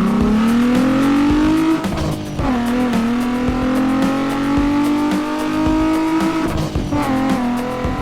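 Car engine revving, its pitch climbing slowly, dropping about two seconds in, then climbing again and falling back near the end, with background music.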